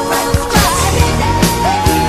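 Rock music with a steady drum beat and sustained, bending melody lines.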